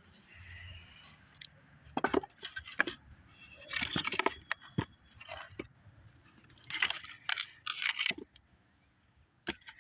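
Crunching and knocking in irregular clusters of sharp noises, several seconds apart.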